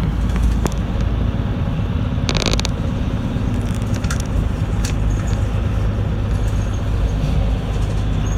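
Inside a moving route bus: steady low rumble of the engine and road noise, with a brief rapid rattle about two seconds in and a few light clicks.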